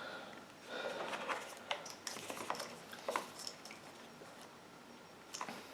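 Faint handling noises, scattered small clicks and rustles, as a replacement start capacitor and its wires are worked into a power washer motor's capacitor box.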